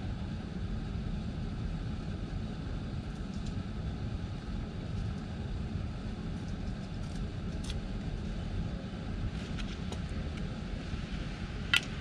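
Steady low outdoor rumble with a few faint ticks, then near the end one sharp click as a squirrel reaches the glass dish of peanuts.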